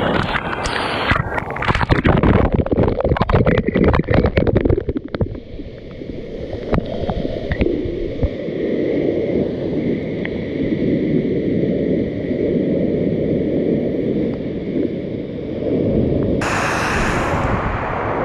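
Loud rushing creek or waterfall water. For the first five seconds it comes with crackling noise on the microphone, then it settles into a steady low rush. There is a short hiss about sixteen seconds in.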